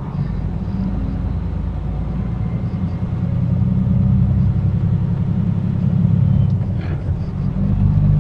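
Semi-truck diesel engine running: a steady low drone that grows a little louder about three seconds in.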